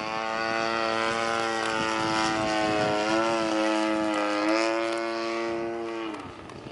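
Sbach RC plane's 35cc two-stroke gas engine running at high throttle as the plane flies by. The engine tone climbs in pitch at the start and holds with slight wavers, then drops in pitch and fades about six seconds in as the plane passes away.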